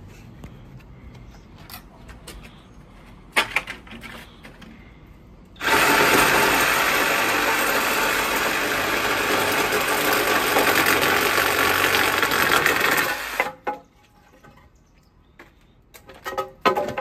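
Compact cordless reciprocating saw cutting through a wooden board, running steadily for about eight seconds and then stopping. Sharp knocks come a few seconds before it starts and again near the end.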